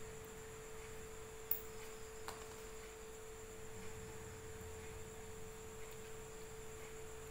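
A faint, steady, pure tone like a background electrical whine, held unchanged throughout, with two small clicks, one about one and a half seconds in and another just after two seconds.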